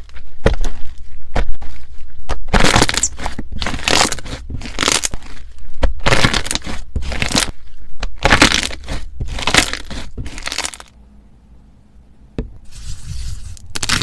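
Slime being squeezed and pressed by hand, giving a run of crackling, crunching bursts about once or twice a second. It stops briefly near the end, then a click and a softer crackle follow.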